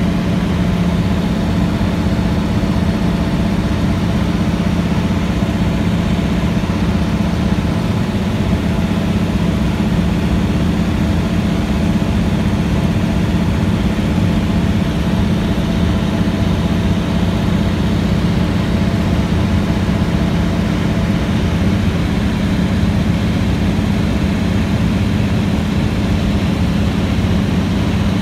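Light seaplane's engine and propeller running steadily in cruise flight, an unchanging drone heard from inside the cabin.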